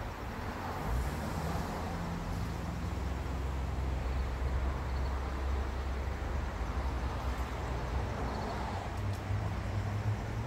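Steady low rumble with a faint hiss: outdoor background noise, like distant traffic.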